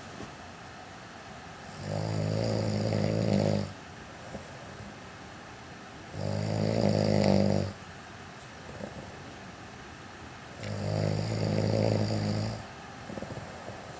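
A sleeping man snoring: three long snores, each about one and a half to two seconds, coming roughly every four and a half seconds, with quieter stretches between.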